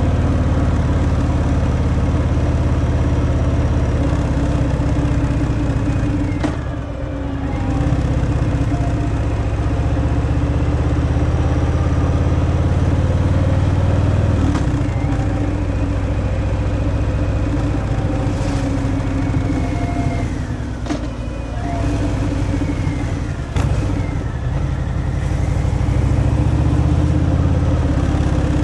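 Harley-Davidson Fat Boy's V-twin engine through its stock exhaust, pulling steadily while riding. Its revs drop and pick back up a few times, about 7, 15, 21 and 24 seconds in.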